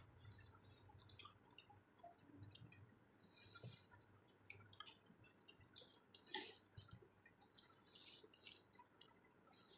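Faint wet eating sounds: scattered soft smacks and clicks of food being eaten, with a slightly louder one about six seconds in.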